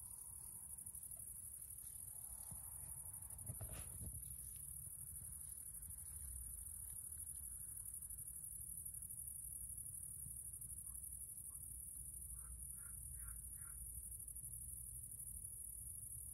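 Crickets chirring in a steady high-pitched drone, with a brief rustle about four seconds in.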